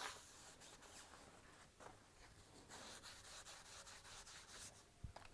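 Faint rubbing of a cloth wiping the gear pump's shaft clean, in soft patches, with a small click near the end.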